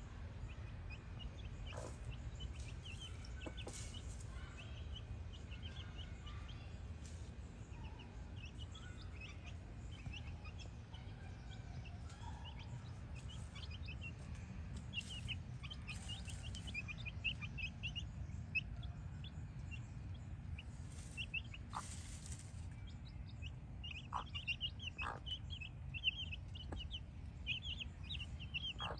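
Brahma chicks peeping in rapid, short, high chirps, thickest near the end.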